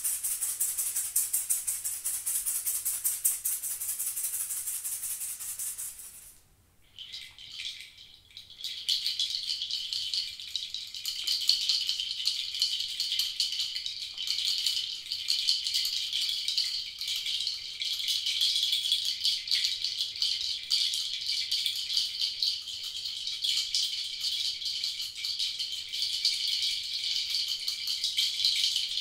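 Hand shakers rattling steadily. A fine, high, hiss-like shaking stops about six seconds in. A second, lower and coarser rattle starts about two seconds later and keeps shaking evenly.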